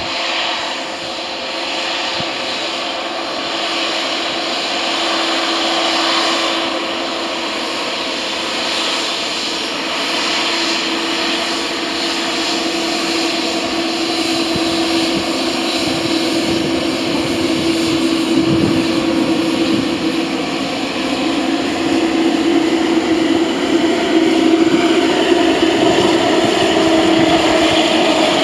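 Twin jet engines of an Oman Air Boeing 787 Dreamliner running as it taxis past: a steady engine hum with one held note, growing louder as the aircraft draws near.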